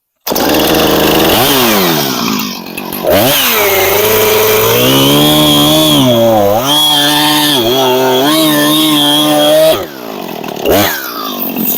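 Gas chainsaw revving up and cutting through a freshly felled aspen (popple) trunk. The engine pitch sags and recovers repeatedly under load, then falls back to a lower, quieter running about ten seconds in.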